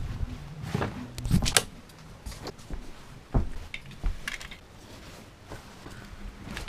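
Irregular knocks, clicks and thumps of someone entering a wooden cabin: the wooden door, steps on the plank floor and handling of the camera. The loudest knocks come about a second and a half in, with another sharp one near the middle.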